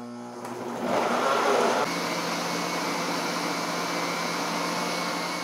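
Countertop blender running, blending chopped raw beets, eggs, sugar and oil into cake batter. About a second in it grows louder and rougher as the pieces are chopped, then from about two seconds in it runs evenly on the smooth purée.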